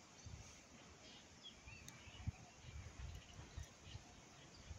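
Near silence: faint outdoor ambience with a few soft, short high chirps and some low bumps.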